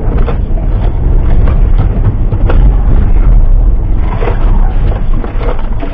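Car sliding off an icy highway into the roadside snow: a loud, heavy low rumble from the tyres and body ploughing through snow, with a few knocks.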